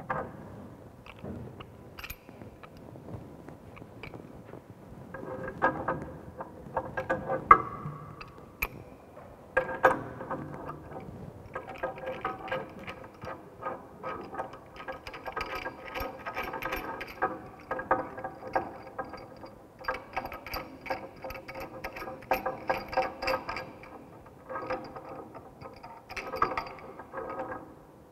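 Pipe wrench working a threaded fitting on a galvanized steel pipe: metal clicks and rattles as the jaws grip, turn and are reset, a few scattered at first, then in long quick runs of clicking. The Teflon-taped joint is being tightened so that it will not leak.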